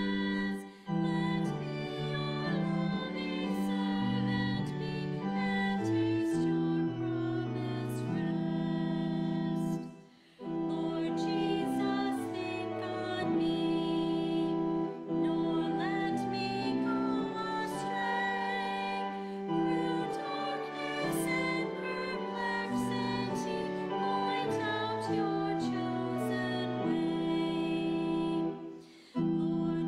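Hymn singing with sustained keyboard accompaniment, the notes changing in steady steps, with brief breaks between phrases about a second in, near ten seconds in and near the end.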